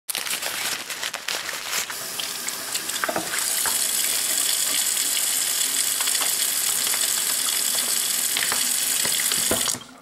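Crinkling and clicking of a plastic pouch being handled for the first three seconds. Then a kitchen faucet runs steadily into the sink and is shut off suddenly just before the end.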